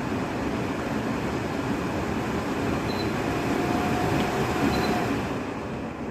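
Portable HEPA air purifier's fan running at a high speed, a steady rush of air that thins out near the end. Two short faint beeps sound in the middle.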